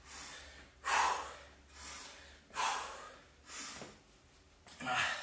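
A man breathing hard and catching his breath: about five heavy, noisy breaths, roughly one a second, as he recovers from high-intensity jump-squat and kick intervals.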